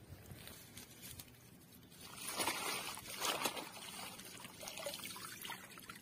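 Hands splashing and scooping muddy water in a shallow hole in wet mud. Quiet at first, then a run of wet sloshing and trickling starts about two seconds in.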